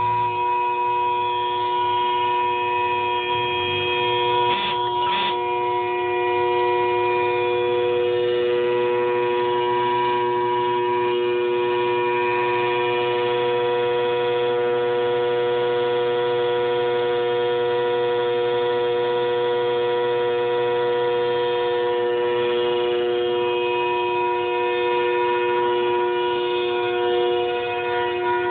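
Nissan Altima car horn stuck on, sounding a loud, steady, unbroken two-note blare. Two brief knocks come about five seconds in.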